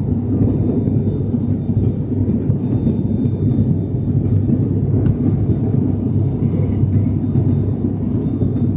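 Steady cabin drone of an ATR 72-600 turboprop in flight, heard from inside the passenger cabin: a dense low rumble from its Pratt & Whitney PW127M engines and propellers, with a steady low hum under it.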